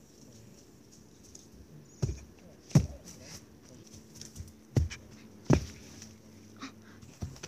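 Dull thumps of a person jumping and landing on grassy ground close by, in two pairs less than a second apart and one more near the end.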